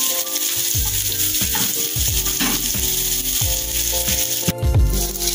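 Sliced onion sizzling in oil in a frying pan, with background music and a steady beat over it.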